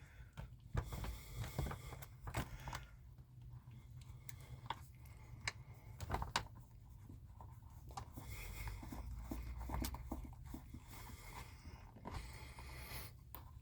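Faint scattered clicks and scrapes of hand work as a screw is driven back in to hold the refrigerator door's lower hinge, over a low steady hum.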